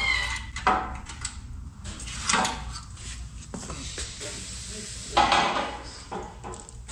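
Loose steel car-body parts clanking and scraping as they are handled and set down on a concrete floor: several separate clanks, the loudest cluster about five seconds in.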